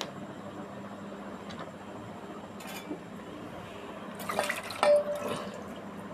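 Jujube sharbat being strained and poured, with light liquid sounds, then a few clinks of utensils on crockery about four to five seconds in, the loudest a short ringing clink.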